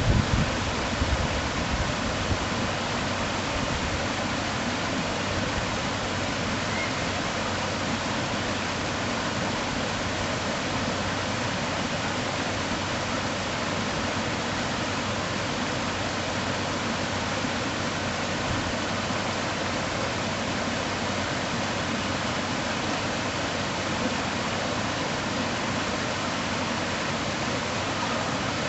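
Waterfall: a steady, unbroken rush of falling water, with a few low thumps in the first two seconds.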